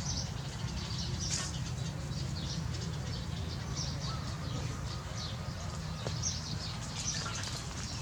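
Small birds chirping with many short, high notes over a steady low hum.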